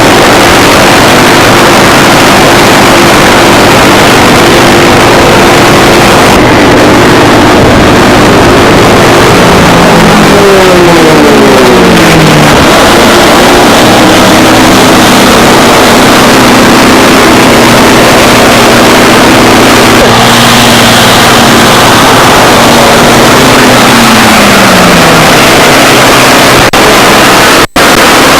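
Racing aircraft's piston engine running very loud and close, a steady multi-tone drone whose pitch drops twice as the engine speed falls, about ten seconds in and again near the end. The sound cuts out for an instant just before the end.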